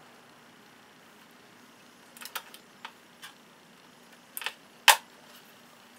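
Small clicks and taps of a bulb socket and wire connectors being handled and pushed into the back of a steel instrument cluster housing. They start about two seconds in, and the sharpest click comes just before five seconds.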